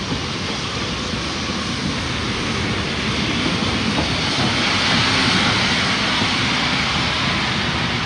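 French steam train arriving: a steady rumble and hiss that swells to a peak about five seconds in, then eases slightly.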